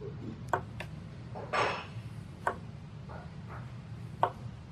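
Small carving chisel pushed by hand into a wooden board, cutting a small nick: a few sharp little clicks as the edge bites and chips break free, and one short scraping slice about a second and a half in.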